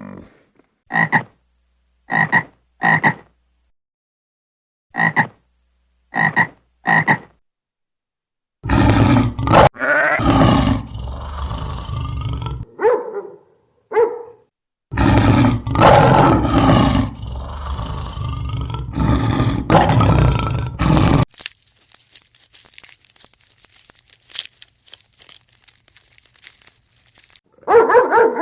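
Frogs croaking: short single croaks spaced a second or so apart, then two long, loud stretches of continuous calling.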